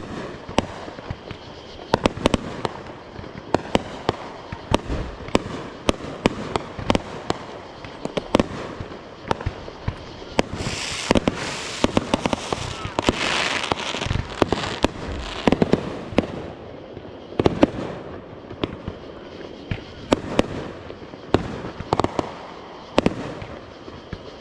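Fireworks going off: many sharp bangs and pops at irregular intervals, with a stretch of dense hissing crackle about halfway through.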